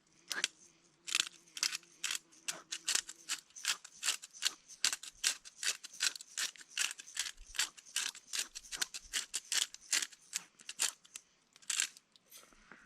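Pepper being ground or shaken out over a cleaned grayling: a long run of short, crisp crunching clicks, about three or four a second, that stops shortly before the end.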